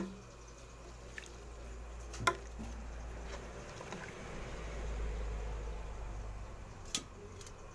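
Thick mung bean stew with greens being stirred in a metal pot: wet sloshing and squelching that swells over the middle seconds, with sharp knocks of a utensil against the pot, one about two seconds in and another near the end.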